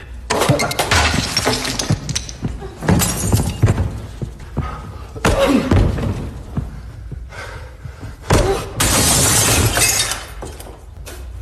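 Cinematic fight sound effects: hard punch and body impacts mixed with glass shattering and breaking, in several loud bursts a few seconds apart. The longest is a dense crash of nearly two seconds near the end.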